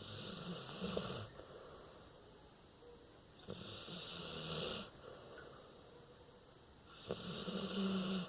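Snoring in deep sleep: three snores about three and a half seconds apart, each a little over a second long, a low rattling buzz with breathy hiss over it.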